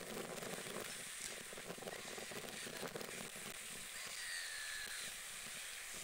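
Steady faint outdoor hiss with scattered small clicks, and a faint short whistle, falling slightly, about four seconds in.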